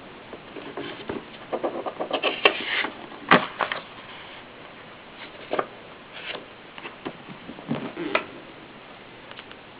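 Mechanism of a Kolibri portable typewriter being worked by hand: irregular clicks and knocks, with a quick run of small ratchet-like clicks and a brief scrape about two seconds in, and a sharper knock a second later.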